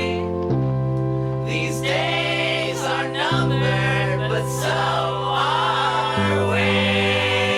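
Song music: held chords over a bass that steps to a new note three times, with wordless singing above the chords in the middle stretch.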